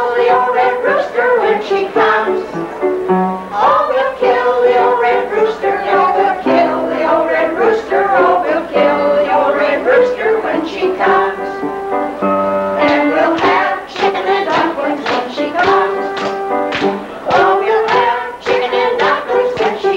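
Kitchen band playing a tune: held melody notes over a steady tapped beat.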